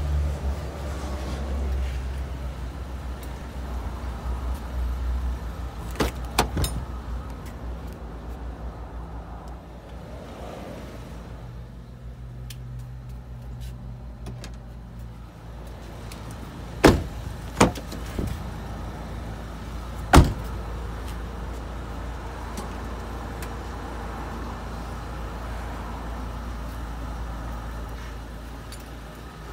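Doors of a wrecked 2015 Nissan Versa Note hatchback being opened and shut: a couple of sharp knocks about six seconds in, then three louder slams and clunks between about seventeen and twenty seconds, over a steady low rumble.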